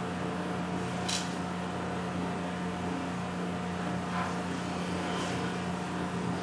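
Steady low electrical-sounding hum with faint hiss, and a brief faint tick about a second in.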